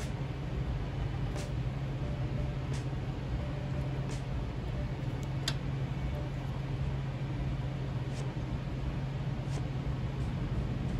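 A steady low mechanical hum that does not change, with a few faint clicks scattered through it.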